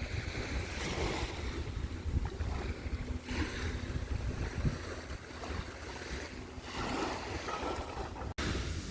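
Sea waves washing against the shore, with wind buffeting the microphone; the sound briefly cuts out near the end.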